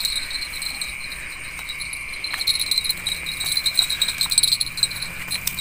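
Crickets and other night insects chirring: a continuous high trill with a pulsing buzz above it, and a few faint clicks.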